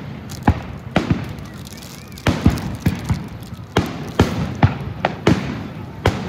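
Aerial fireworks going off in quick, uneven succession: about a dozen sharp bangs, each trailing a brief echo.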